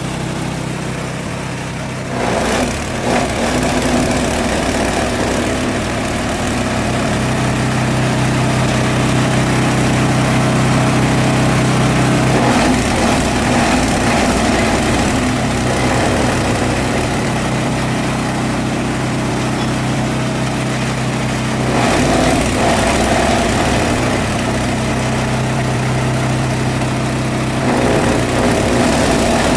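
G-20 chopper-grinder running steadily while chopping and grinding elephant grass through a 15 mm screen. It makes a constant machine drone that grows louder about two seconds in and shifts a few times as the load changes.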